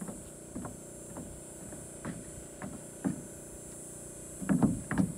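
Footsteps on a new 3/4-inch plywood shed subfloor over 2x8 joists, about two steps a second. Near the end they turn into louder, quicker stomps as he starts dancing on the floor.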